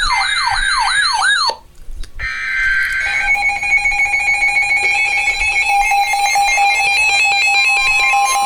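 Electronic alarm tones. A yelping sweep repeats about three times a second and cuts off about a second and a half in. After a short gap comes a steady high tone, then a steady lower tone with a fast-pulsing pattern of higher beeps over it.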